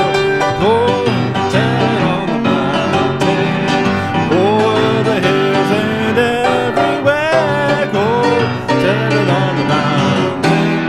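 Country-style instrumental music: plucked strings under a lead melody that bends and slides between notes.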